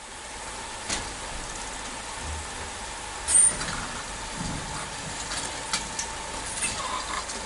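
Telescopic belt conveyor running with a steady hum, with scattered knocks as tyres are handled onto the belt; the loudest is a sharp knock with a brief high squeak about three seconds in.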